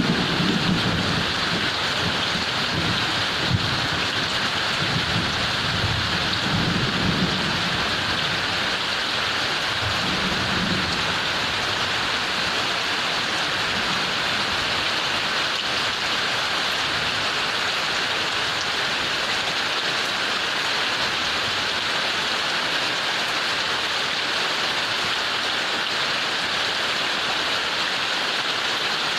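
Heavy rain falling steadily, with a low rumble of thunder through roughly the first ten seconds that then fades away, leaving only the rain.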